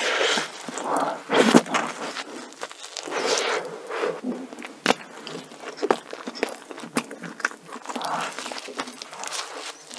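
Eating a cream-filled glazed doughnut: a big bite, then chewing and mouth sounds, and another bite near the end.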